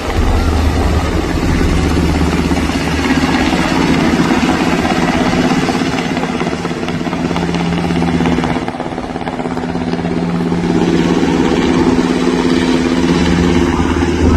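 Navy helicopter in flight: a steady drone of engine and rotor, easing slightly about nine seconds in.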